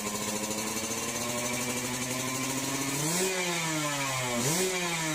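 Motorcycle engine running at a steady, slowly sinking note. About three seconds in it is revved in short throttle blips, each pitch rise quick and each fall slower, as when warming up a motorbike.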